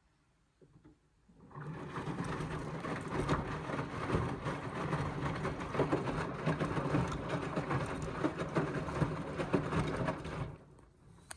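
Indesit washing machine drum turning during the rinse, its motor humming while the wet cotton load and water slosh and tumble. It starts about a second and a half in and stops short near the end, as the drum pauses between turns.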